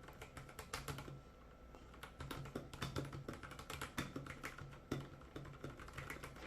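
Fast, irregular keystrokes on an iLovBee i61 60% mechanical keyboard during a typing test, with many quick clacks and taps of the keys.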